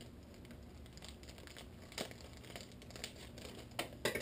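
Faint crinkling of plastic packaging as a pack of Nerf Vortex foam discs is opened, with a few light clicks, one about two seconds in and a cluster near the end.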